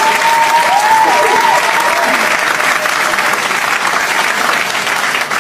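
Crowd applauding, a dense steady clatter of clapping, with the tail of a tune fading out in the first two seconds.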